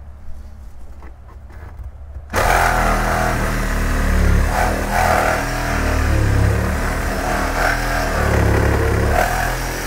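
A handheld power tool starts up suddenly about two seconds in and runs loudly, cutting through the rusted steel seat frame rails; the seats are seized to the floor, so they are being cut out.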